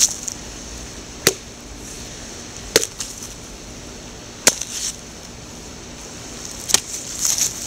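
A machete chopping into a pumpkin: four sharp strikes, one to two seconds apart, as the pumpkin is hacked open.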